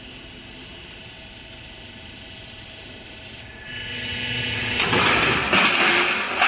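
Double-deck roofing sheet roll forming machine running with a low steady hum, then from about four seconds in a loud, rising metallic rattle and clatter as the formed corrugated steel sheet leaves the machine and drops off, with sharp crashes near the end.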